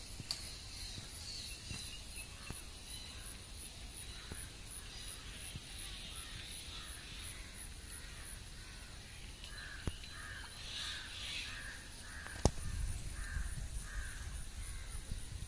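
A crow cawing, a string of about eight calls in the last third, over a faint steady background with a few light knocks.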